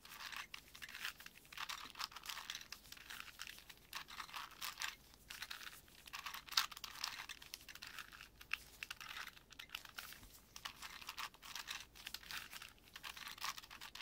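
Plastic 4x4x4 Rubik's Cube being turned quickly by hand: a steady run of clicks and rattles as the layers snap round, with one sharper click about halfway through.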